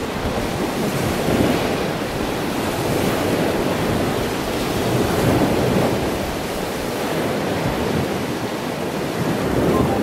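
Ocean surf washing onto a beach: a steady rushing of breaking waves that swells and eases gently every few seconds.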